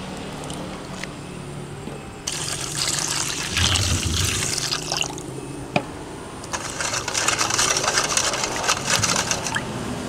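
Liquid corn pudding mixture pouring and splashing into a pot, in two spells: one starting about two seconds in, the other about six and a half seconds in.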